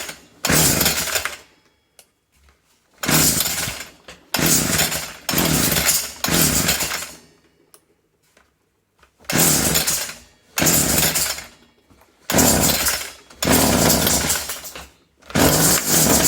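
Small petrol engine of a Homelite i625cd string trimmer being pull-started after a carburettor change: about nine bursts of about a second each with short gaps, as it catches and dies, then it keeps running near the end.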